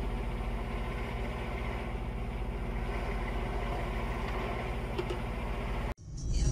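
Truck engine running steadily at highway speed, heard from inside the cab as a low, even drone. It cuts off abruptly near the end.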